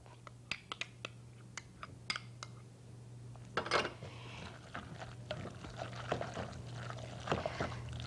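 A spoon working a thick ground-beef and mashed-bean mixture in a glass mixing bowl as ketchup is scraped in and stirred through. There are scattered light clicks and taps at first, then denser wet scraping and squishing from about three and a half seconds in.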